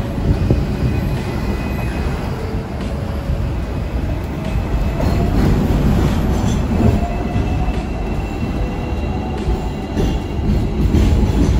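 Hong Kong double-decker electric tram running on street track, heard from on board: a steady rumble of steel wheels on rail, with thin squealing tones from the wheels at times.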